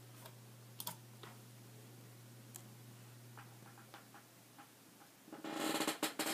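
Handling noise: a few faint scattered clicks and taps, then, about five seconds in, a louder rustling with sharp knocks lasting about a second as the camera is picked up and swung from the phone to the computer screen.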